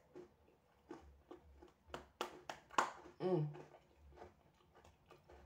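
Someone chewing a mouthful of milk-soaked Oreo and banana: a run of wet mouth clicks and lip smacks, the sharpest nearly three seconds in, with a short low hum just after.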